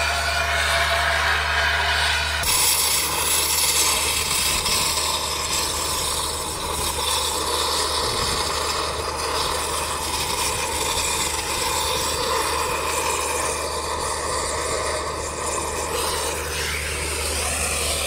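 Thermal oxygen lance burning into a solid steel crusher shaft: a loud, steady hiss and rush of oxygen and burning steel, over a steady low hum. The sound changes abruptly about two and a half seconds in.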